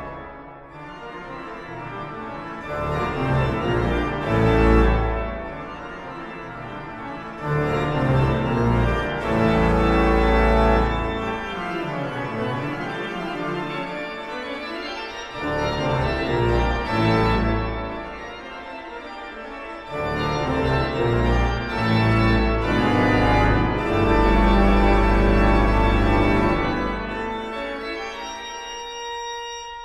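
Organ music: sustained chords over deep bass notes that swell and drop back several times, thinning out near the end.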